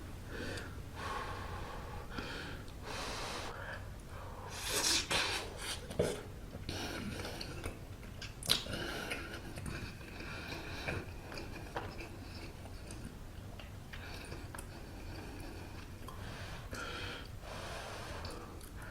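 Close-miked mouth sounds of a person eating a hot steamed bun: breathy blowing and puffing in irregular swells, with chewing and a few sharp mouth clicks.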